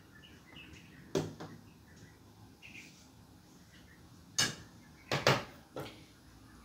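Kitchen utensils and containers being handled: a single knock about a second in, then three or four sharp clicks and knocks about four to six seconds in.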